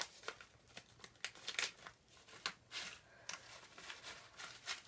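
Small plastic snack packet crinkling and crackling in the hands as it is worked open, with irregular sharp crackles and tearing sounds.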